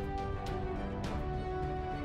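Background music: an instrumental track with sustained notes and occasional drum hits.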